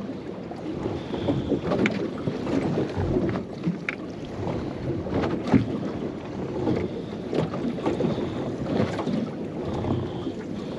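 Water slapping and lapping against a small boat's hull, with wind buffeting the microphone and a few light clicks and knocks.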